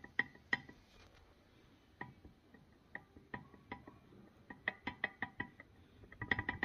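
Removed Škoda Superb shock-absorber strut knocking as it is worked by hand: sharp metallic knocks with a short ring, some in quick runs of several a second and some single. The knock is the strut's internal fault.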